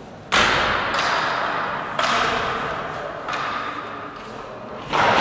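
Four heavy bangs from construction work, about a second and a half apart. Each echoes for more than a second through the large, unfinished church interior.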